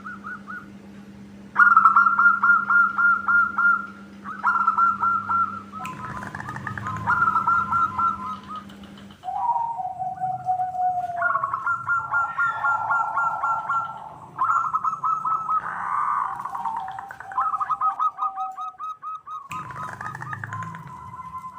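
Zebra doves (perkutut) singing: phrase after phrase of rapid staccato cooing trills, several birds overlapping, with a lower falling coo now and then. A low steady hum runs under the first half.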